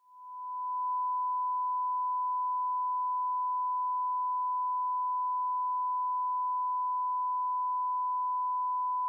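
A single steady electronic beep, one unchanging pure tone like a test tone, swelling up over about a second and then held.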